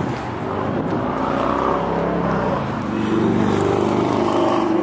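A motor vehicle's engine running nearby, growing louder and rising in pitch about three seconds in, as if revving or pulling away.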